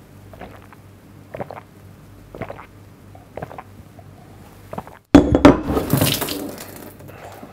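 A man gulping down a glass of beer, with a swallow about once a second. About five seconds in comes a sudden loud knock as the empty glass is put down, and the noise fades over about two seconds.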